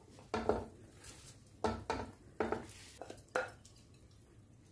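A wooden spoon knocking against a glass bowl and a cooking pot while soaked rice is tipped out and spread level in the pot: about eight short knocks, the last about three and a half seconds in.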